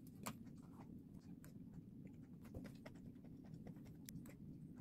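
Faint scattered clicks and scrapes of a metal spoon against a plastic takeout tub and small plastic side-dish cups, as leftover side dishes are tipped into the porridge. A low steady room hum runs underneath.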